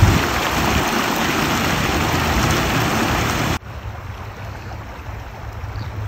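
Creek water spilling over a small concrete ledge, a steady loud rushing. About three and a half seconds in it cuts suddenly to the much softer flow of the stream rippling along.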